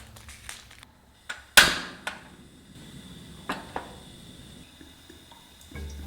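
Kitchen clatter: a sharp knock with a brief rush of noise after it about a second and a half in, then a couple of lighter clicks.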